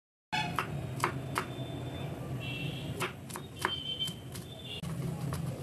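Cleaver chopping garlic cloves on a wooden cutting board: sharp knocks of the blade on the board in two short runs, the first about half a second in and the second around three seconds in.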